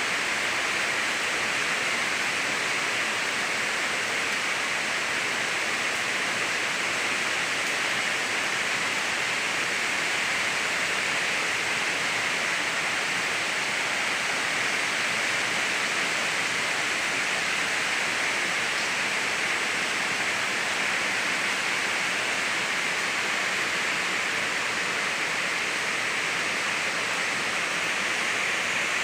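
Steady rush of rainwater pouring into a pond.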